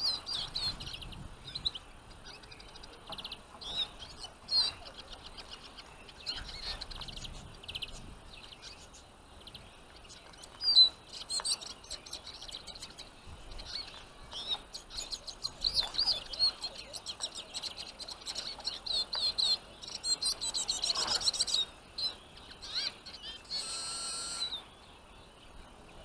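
Small finches, European goldfinches and Eurasian siskins, twittering and chirping in quick high runs of notes, busiest a few seconds before the end.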